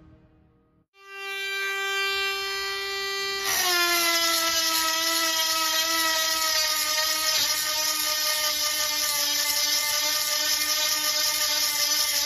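Handheld rotary tool with a round grinding stone starts about a second in with a steady whine. From about three and a half seconds in it grinds a saw-chain cutter: the whine drops a little in pitch under the load and a harsh grinding hiss joins it. Near the end the stone lifts off and the pitch rises again.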